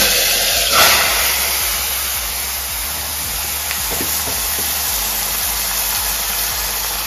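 Marinated mutton sizzling loudly in hot oil in a pressure cooker, a steady hiss that flares briefly about a second in.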